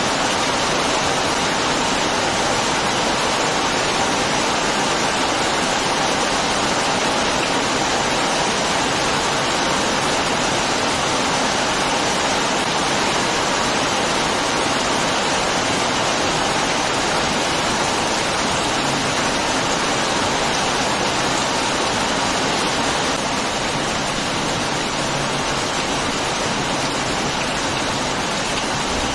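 Heavy rain falling: a steady, dense hiss of downpour, a little quieter for the last few seconds.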